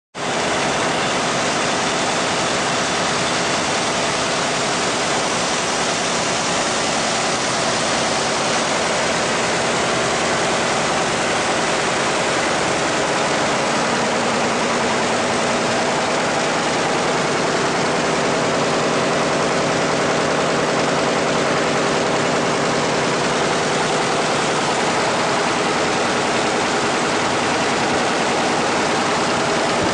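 Winkler+Dunnebier 527 GSV.38 envelope folding machine running, a steady dense mechanical rattle with a fast even rhythm.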